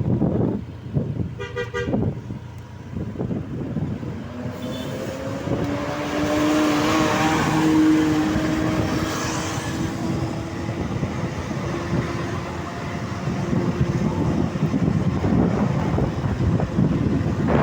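A bus's basuri horn, the musical multi-tone horn fitted to Indonesian buses, sounding one long held tone that glides slightly upward, over the noise of traffic and engines. A short stuttering toot comes about a second and a half in.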